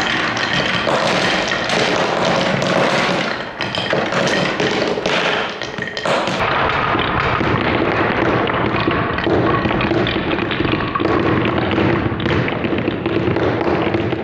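Many plastic marbles rattling down through wooden Cuboro blocks and clattering into a wooden tray: a dense, continuous stream of clicks and knocks.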